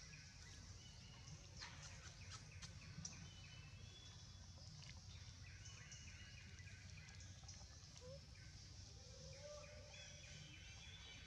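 Near silence: faint outdoor ambience with a steady low hum and scattered faint short chirps.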